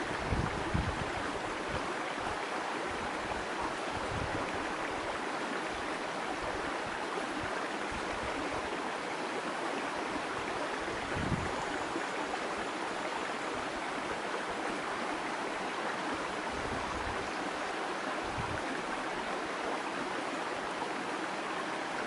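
Shallow mountain stream babbling over rocks: a steady, even rush of running water, with a few brief low rumbles.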